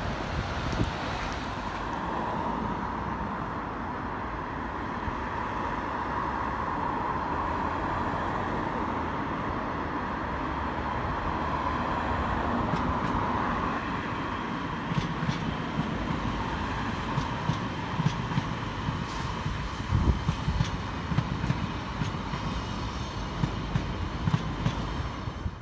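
SJ X55 (Bombardier Regina) electric multiple unit running past on the track, a steady rumble with a held hum. From about halfway through, a series of sharp wheel clicks over rail joints and points comes in. The sound cuts off suddenly at the end.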